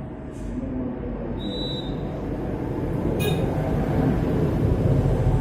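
Low rumble of road traffic that grows louder toward the end, with a single thin high whistle about one and a half seconds in and a short sharp chirp a little past three seconds, night calls of a Siberian thrush.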